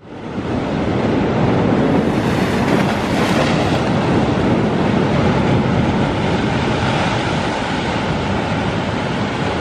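Sea surf breaking against a rocky shore: a loud, steady rush of waves.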